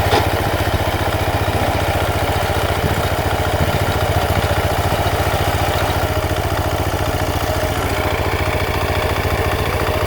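Rice reaper's engine running steadily at close range, with a fast, even pulse.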